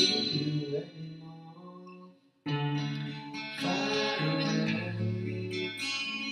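A man singing to a steel-string acoustic guitar played with a capo. About two seconds in the sound almost vanishes for a moment, then guitar and voice come back in together.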